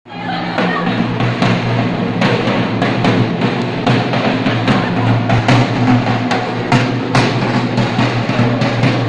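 Loud music with a steady drum beat, a little more than one beat a second, over a sustained low bass line.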